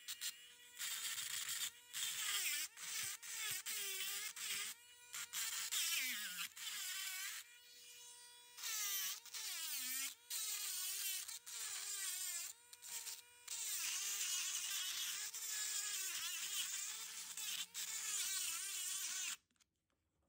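Dremel rotary tool whining at high speed and grinding into a fossil shell rock in repeated gritty bursts, its pitch sagging each time the bit is pressed into the rock. It stops suddenly near the end.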